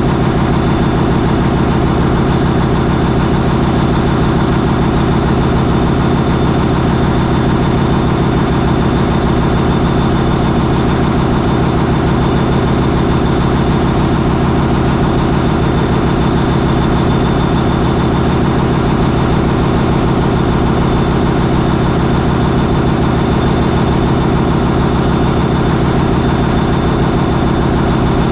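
MAN 20V28/33D STC twenty-cylinder V diesel marine main engine running steadily at about 800 RPM. A thin, steady high whine sits over the engine's even drone.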